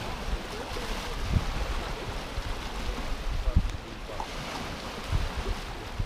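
Small sea waves lapping and washing up on a sandy, stony shore, a steady rushing wash with a few low thumps.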